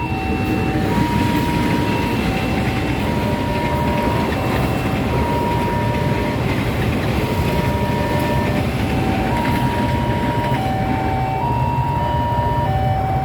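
Train running past over a level crossing while the crossing's electronic warning signal plays a repeating pattern of short held tones at three or so pitches.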